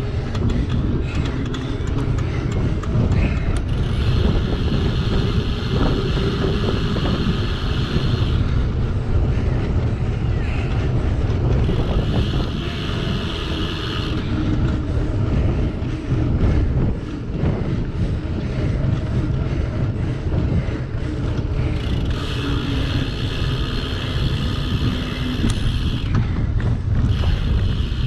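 Wind buffeting a GoPro microphone on a single-speed cyclocross bike being ridden at race pace, with a steady low rumble of tyre and bike noise. A higher buzz comes and goes three times, a few seconds each.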